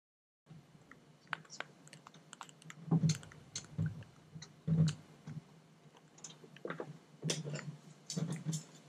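Irregular clicks and a few duller knocks of a Tesla Model 3's plastic front bumper clips and fasteners being worked loose by hand, over a faint steady low hum.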